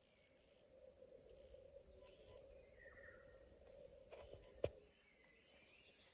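Near silence: faint ambience of an empty building with a low steady hum, a few faint chirps, and one short sharp tap about four and a half seconds in.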